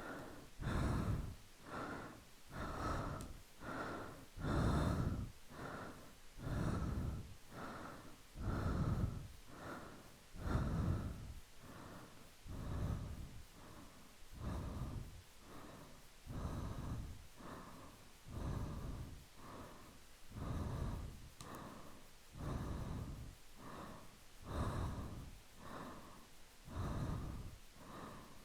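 Close-miked ASMR breathing: slow, soft breaths in and out, one puff of breath about every second, alternating stronger and softer.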